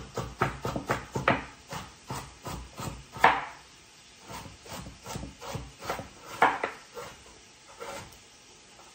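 Chef's knife chopping carrots on a cutting board: quick knocks of the blade on the board, about three a second at first, then slower and scattered. The loudest strike comes a little over three seconds in, with another strong one about six and a half seconds in.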